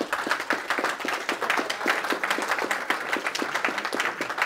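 Audience applauding: many people clapping at the end of a lecture.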